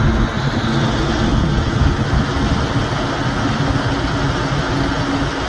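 Walk-in cooler condensing unit running, compressor and condenser fan giving a steady hum. The compressor is straining under load while it is being recharged with refrigerant, which the technician calls putting it "through hell".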